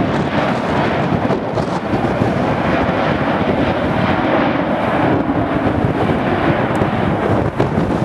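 Jet engines of a rear-engined twinjet airliner rolling along the runway, mixed with strong wind buffeting the microphone.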